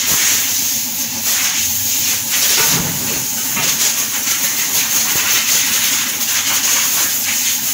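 Compressed air blasting from a workshop air blow gun, a steady loud hiss, blowing heavy dust out during cleaning.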